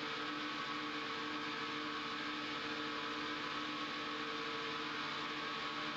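HH Roberts 14x40 CNC lathe powered up and running, giving a steady whir and hum with a couple of steady tones under a hiss.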